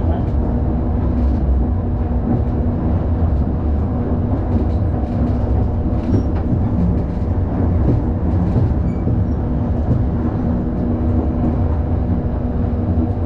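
Hakodate City streetcar running along its street track, heard from inside the car: a steady low rumble of wheels on rail under a constant hum, with a few faint clicks.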